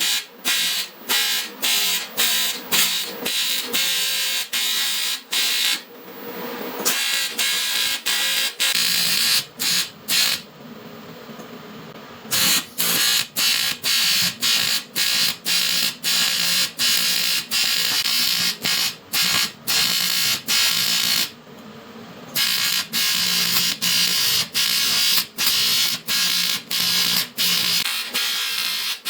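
Electric welding arc on aluminum, buzzing and crackling in short runs that break off about twice a second, with longer pauses about six, ten and twenty-one seconds in.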